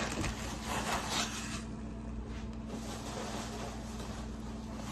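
A click, then rustling and handling of grocery bags for about a second and a half as items are rummaged through, fading into a steady low room hum.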